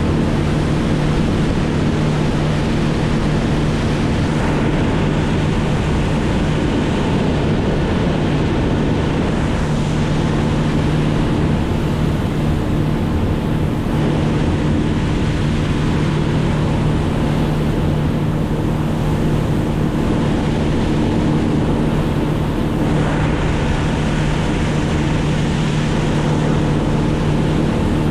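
A motor engine running steadily at constant speed, heard from on board, with rushing wind or water noise.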